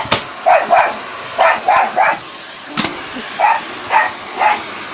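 Dog barking repeatedly, about two barks a second, at a running vacuum cleaner it is afraid of, the vacuum's steady noise underneath. One sharp click comes about three seconds in.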